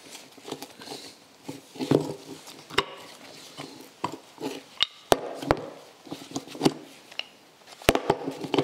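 Irregular sharp metal knocks and clinks, with scraping and glove rustle, as a rusty disc brake caliper is handled and a brake pad is worked out of it.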